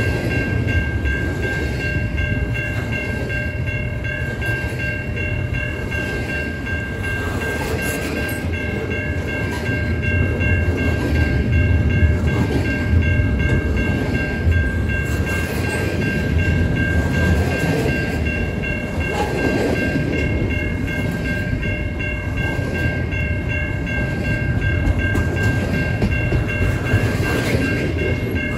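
Double-stack intermodal well cars rolling past close by: a steady low rumble of steel wheels on rail, with a steady high-pitched whine over it.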